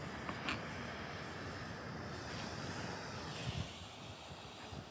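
Handheld gas torch burning with a steady rushing hiss, mixed with wind on the microphone.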